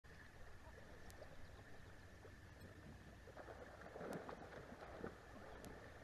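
Near silence: faint outdoor ambience with a faint steady high hum and a few soft clicks.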